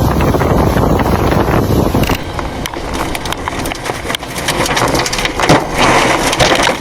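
Storm wind buffeting the microphone. About two seconds in it cuts to a dense clatter of sharp cracks and knocks over steady rushing noise.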